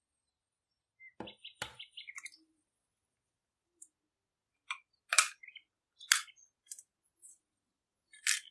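A hen's egg tapped on the rim of a glass bowl and its shell cracked open: a series of sharp clicks and taps, a cluster about a second in and then single loud ones spaced about a second apart.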